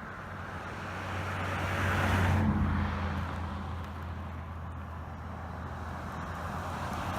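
A car passing by on a road: its engine and tyre noise swells to a peak about two seconds in and fades away, and another vehicle approaches near the end.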